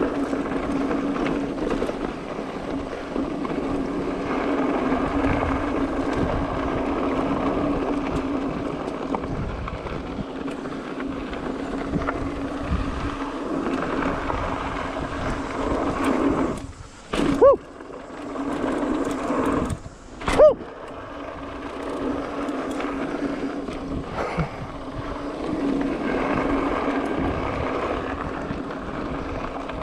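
Mountain bike rolling fast down a dirt downhill trail: tyres on loose dirt, the bike rattling and wind on the microphone, with a steady hum under it. Just over halfway through, two brief sharp loud sounds about three seconds apart.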